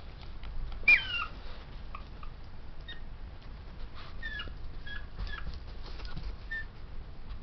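Pomeranian puppy giving a string of short, high-pitched yips and whimpers while playing. The loudest is about a second in and falls in pitch, and the rest are brief squeaky cries spread through the next few seconds.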